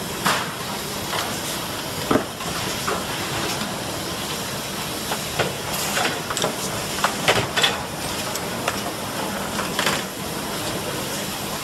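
Automatic inline screw-driving line for TV assembly running: a steady machinery hiss with scattered sharp clicks and clacks, several close together around seven seconds in.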